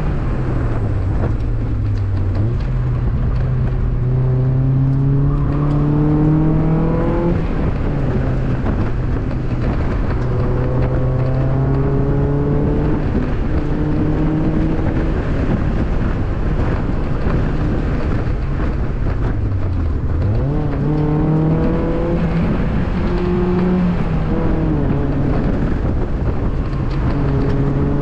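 Mazda Miata's 1.8-litre four-cylinder engine working hard through an autocross run, rising in pitch as it accelerates and dropping back at gear changes about 7 and 14 seconds in. It falls off sharply under braking about 20 seconds in, then picks up again.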